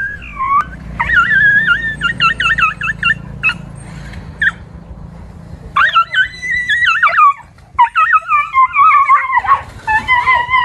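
Dog whining and yipping: high, wavering whines in several bouts with short gaps between, the last one sliding down in pitch.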